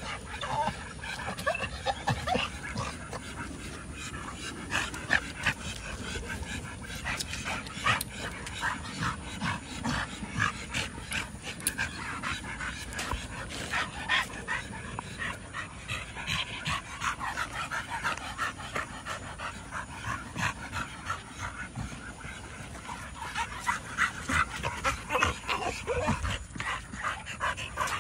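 Excited pit bull-type dogs panting hard, whining and giving short yips, again and again, busier near the end.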